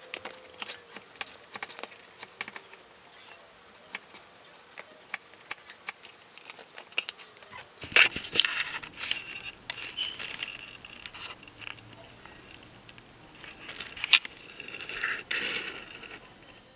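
A kitchen knife cutting food on a paper plate: quick ticks and scrapes of the blade against the plate. About eight seconds in the sound changes to crinkling, rattling handling noise with one sharp click near the end.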